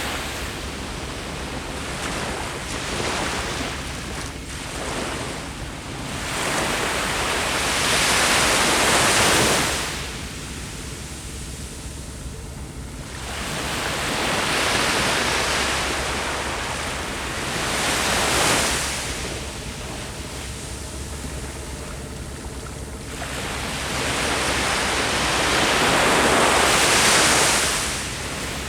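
Sea waves surging onto a beach, a continuous rush that builds and falls away in slow swells every several seconds. The loudest surges come about eight seconds in and near the end.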